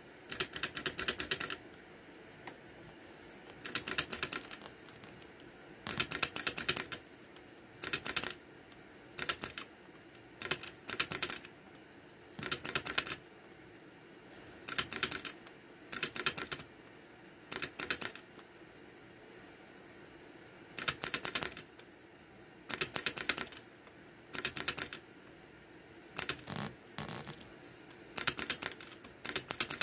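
Guinea pig drinking from a water bottle, its licking setting the metal sipper spout clicking in quick rattling runs. Each run lasts about half a second to a second, and the runs come every second or two.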